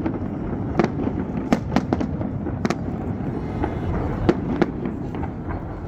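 Fireworks going off: a string of sharp bangs and cracks, about half a dozen strong ones with smaller pops between, over a continuous low rumble.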